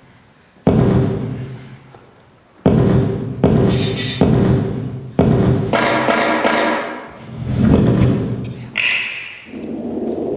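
Dubstep track playing loudly. Two heavy hits start suddenly about two seconds apart and each fades out, then denser electronic sound follows, with a swell about eight seconds in.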